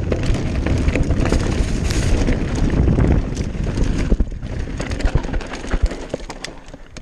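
Commencal Meta AM V4 Race mountain bike riding over a loose, stony trail: tyres crunching on gravel, many sharp knocks and rattles from the bike, and wind rushing over the microphone. The noise gets quieter from about four seconds in.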